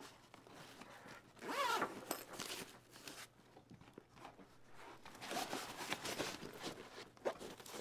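The zipper on a fabric cooler bag being pulled, about one and a half seconds in, followed later by quieter rustling as a stiff foam panel is handled into the bag.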